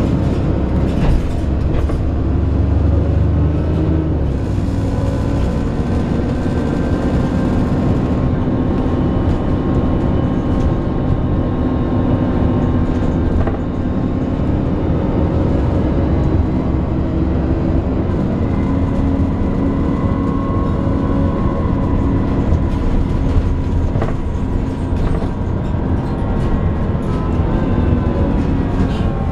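Alexander Dennis Enviro 400 double-decker bus on a Trident 2 chassis running: a steady drive drone with held groaning tones that drift slightly in pitch, a heavier low rumble in the first few seconds, and occasional brief knocks and rattles.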